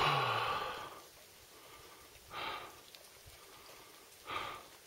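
A hiker's loud voiced sigh, falling in pitch, followed by two shorter heavy breaths about two seconds apart.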